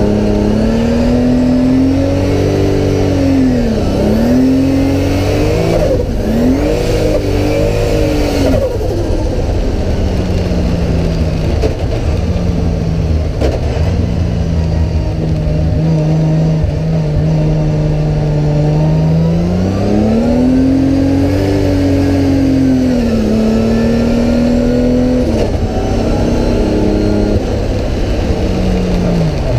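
Toyota GT86 drift car's engine, heard from inside the cabin, revving up and dropping back again and again as the car is driven through drifts. Its pitch rises and falls in long swells. There is a brief rushing noise about six to eight seconds in.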